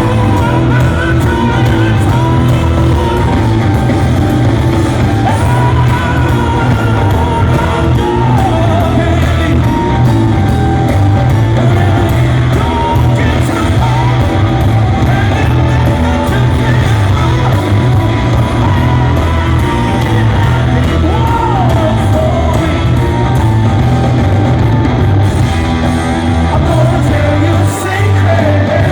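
Rock band playing live in a large hall: loud electric guitar, bass and drums under a male lead vocal that bends and wails through long sung lines.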